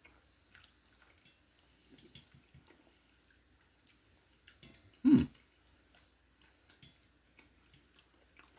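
A person chewing a mouthful of food, with small wet mouth clicks, and a short voiced hum about five seconds in.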